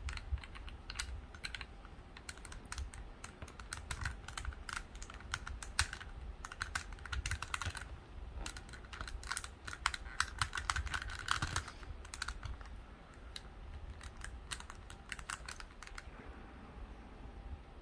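Small plastic pieces of a Rua cube puzzle clicking and scraping in the hands as an internal piece is pushed and wiggled into the core, a fiddly fit. The clicks come irregularly in clusters, thickest in the middle of the stretch.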